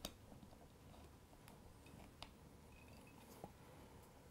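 Near silence with a few faint metallic clicks, the sharpest right at the start, as a strap lock's nut and washer are threaded by hand onto its stud through a leather strap.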